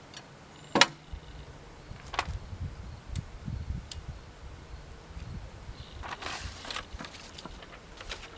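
Olympia SM9 manual typewriter being worked: a sharp, loud clack about a second in, then a few scattered clicks and soft knocks from its keys and levers, and a quick run of several clacks near the end.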